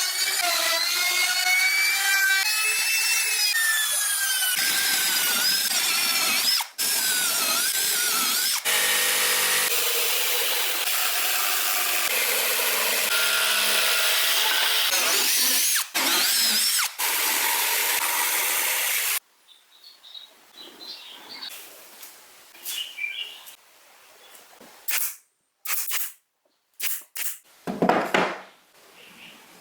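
A power tool runs loudly, its motor whine wandering up and down in pitch, with a few abrupt breaks. About two-thirds through it stops suddenly, leaving only quiet, scattered knocks and clicks of handling.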